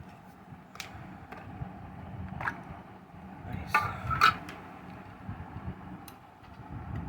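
Scattered light clicks and taps from handling a die-cast model car and its plastic packaging, over a steady low hum.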